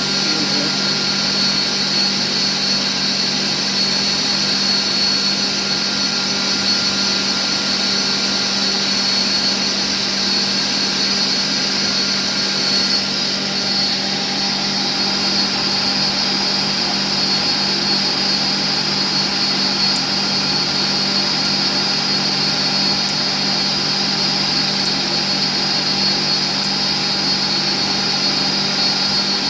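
Steady drone of running workshop machinery with a constant high whine; its tone shifts slightly about halfway through.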